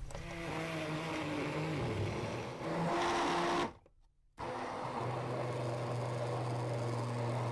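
Electric blender running, pureeing chopped oranges, lemon, ginger and quince. Its motor hum wavers in pitch at first, cuts out briefly about four seconds in, then runs on steadily at a lower pitch.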